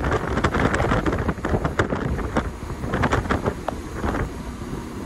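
Wind buffeting the microphone aboard a motorboat running at speed, over a steady low rumble of engine and water along the hull, with many short gusty crackles.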